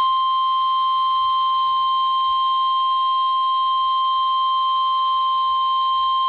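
NOAA Weather Radio 1050 Hz warning alarm tone, one loud, steady, unbroken tone heard through a weather radio receiver. This tone signals that an emergency weather alert message follows.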